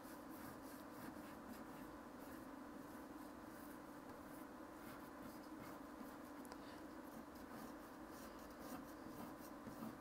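Faint scratching and rubbing of an oil pastel stick on paper, drawn in quick curved scribbling strokes, over a low steady hum.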